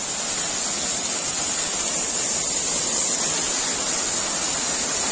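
Small mountain waterfall pouring down a rock face and splashing onto a stone path close by: a steady, unbroken rush of falling water.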